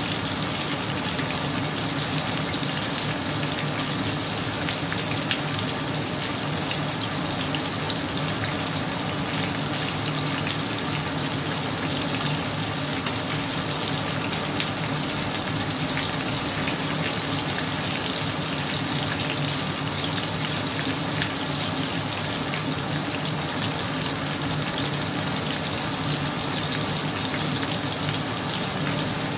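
Pieces of hairtail fish frying in hot oil in a pan: a steady sizzle with small crackles scattered through it.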